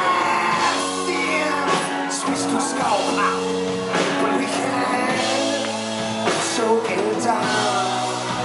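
Live indie rock band playing: electric guitar, bass and drums with a man singing, loud and steady, picked up from among the audience.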